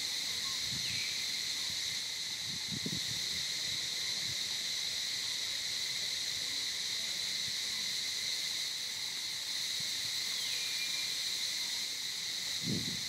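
Steady high-pitched drone of an insect chorus, with a soft low thump about three seconds in and another near the end.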